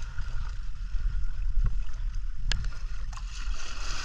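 Wind buffeting the microphone over the steady wash of shallow sea water, with a couple of small sharp ticks.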